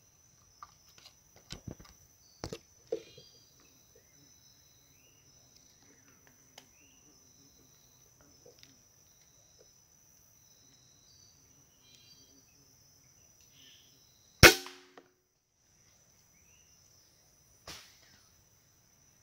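A single sharp air-rifle shot about fourteen seconds in, the loudest sound, followed about three seconds later by a fainter knock. Before it come a few quiet clicks and knocks, over a steady high-pitched insect drone.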